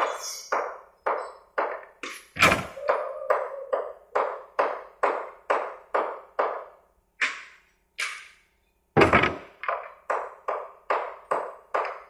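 Hammer blows on nails driven into wooden pallet boards, a quick even run of about two strikes a second, each with a short ring, broken by a pause of about a second around eight seconds in.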